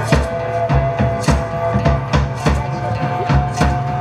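Live band playing: a driving drum-kit beat with heavy bass-drum strikes under a held melody.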